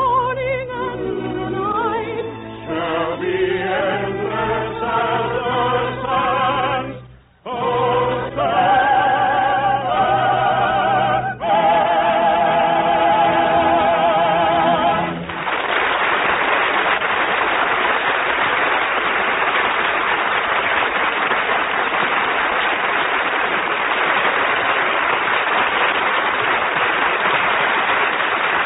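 Closing song of an old radio musical: solo voices with choir and orchestra, ending on a long held final chord. At about fifteen seconds in, steady audience applause takes over.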